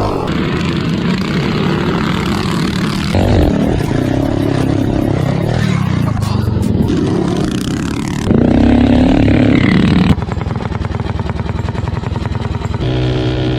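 Minibike's Tillotson 263 single-cylinder engine running hard, in several short clips that change abruptly. The loudest stretch, with rising revs, comes about eight to ten seconds in.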